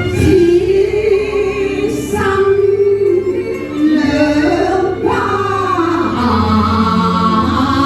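Cantonese operatic song (yuequ) sung by a woman over instrumental accompaniment, with long held notes that slide in pitch.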